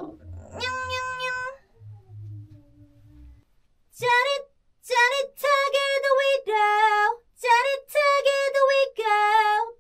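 A female singer warming up before recording: a lip trill ('brrrr') on one steady note about half a second in, then from about four seconds a string of short sung notes at much the same pitch.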